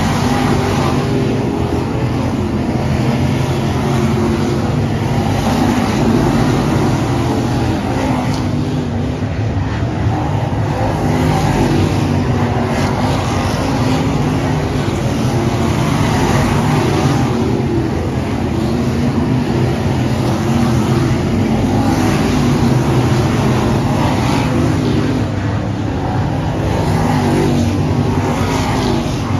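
A field of dirt late model race cars racing around a dirt oval, several engines running at once, with cars passing close one after another.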